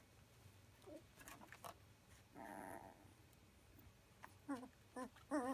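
Two-week-old Llewellin setter puppies whimpering: one drawn-out, wavering whine about halfway through, then a quick run of short squeaky whimpers near the end.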